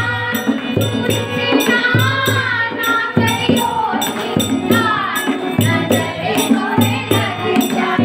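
A group of women singing a Hindi Krishna bhajan together, with steady hand-clapping keeping the beat.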